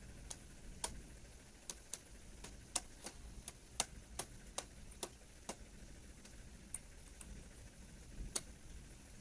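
A series of faint, sharp clicks at irregular intervals, a dozen or more, thinning out after about six seconds.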